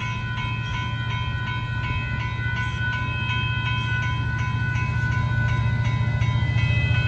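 Railroad grade-crossing warning bell ringing steadily with evenly repeating dings, over the low rumble of an approaching freight train that grows slowly louder.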